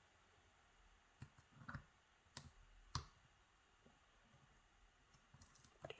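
Lock pick and tension wrench working the pins of a pin-tumbler challenge lock: a handful of faint, scattered small clicks and ticks as the picker probes a stubborn pin.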